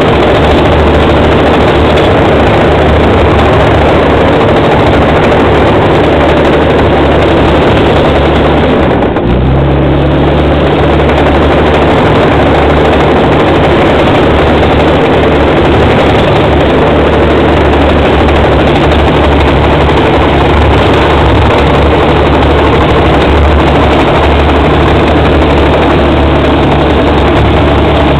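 Bulldozer's diesel engine running loud and steady under work. About nine seconds in it briefly drops, then carries on at a slightly higher pitch.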